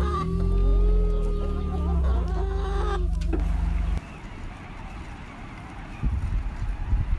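Hens clucking and calling, with long drawn-out notes held for a second or more, over a low rumble. About four seconds in it cuts off suddenly to quieter outdoor noise with a few low gusts near the end.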